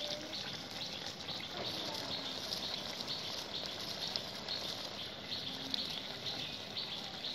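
Sand goby fish curry simmering in a pan over a wood fire, a steady bubbling hiss as it nears done.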